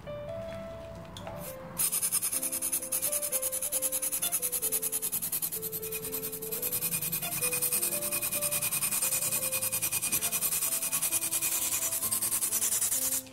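Liposound ultrasonic (Vaser-type) liposuction probe running in water: a loud, rapidly pulsing hiss of cavitation that starts about two seconds in and cuts off suddenly near the end, the probe breaking up the fat into a milky emulsion.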